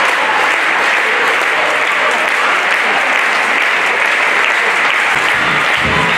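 Crowd of spectators applauding with dense, steady clapping. Music with a low bass beat comes in about five seconds in.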